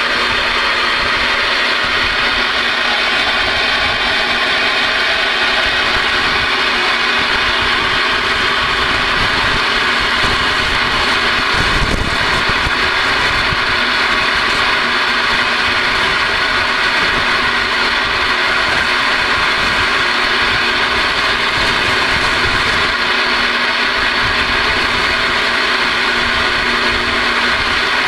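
Steady static from a Galaxy DX-2547 CB base station's receiver speaker, a loud hiss with faint steady tones in it, as the radio is stepped across the channels. A brief click comes about twelve seconds in.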